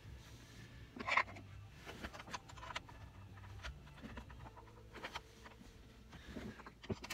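A plastic dash trim bezel being handled and pressed into place around a double-DIN car stereo: scattered light clicks, taps and scraping, the loudest about a second in.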